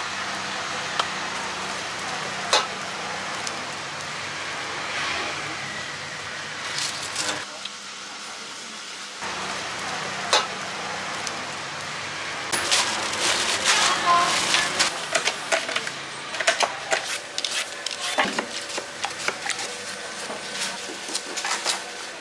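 A spoon scraping and clinking in a steel bowl as spiced fruit salad is scooped into a plastic cup, over a steady hiss. About halfway through, a dense run of sharp clicks and rustles starts as guavas are peeled with a knife over plastic bags.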